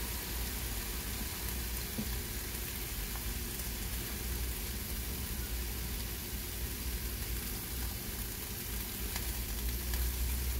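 Beef broth at a rolling boil in a large stockpot, a steady bubbling with a ladle now and then dipping in to skim off the foam.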